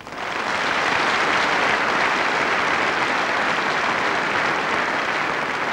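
Audience applauding: dense, steady clapping that starts abruptly, builds within the first second, and begins to fade near the end.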